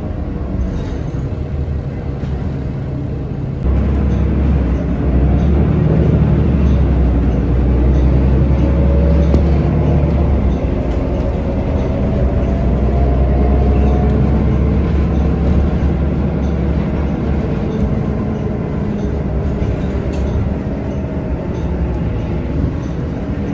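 City bus heard from inside the cabin: engine drone and road rumble. The engine gets louder about four seconds in, and a whine rises in pitch as the bus accelerates.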